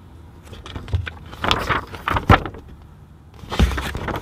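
Pages of a paper comic book being turned and handled, rustling in bursts about a second and a half in and again near the end, over a low steady rumble.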